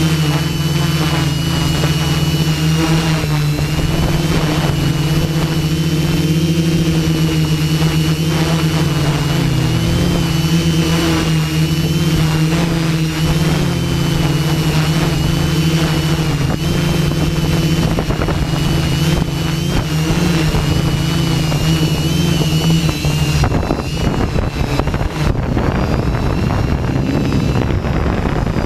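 Hexacopter's electric motors and propellers giving a steady hum in high wind. About 23 seconds in the hum drops away, leaving mostly wind buffeting the microphone.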